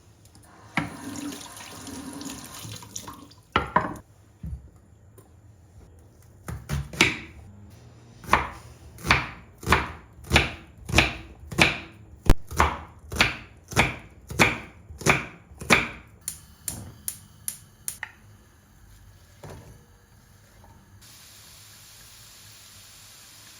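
Kitchen preparation at the sink: water running briefly, then a regular run of about a dozen sharp strokes, roughly one every 0.7 seconds.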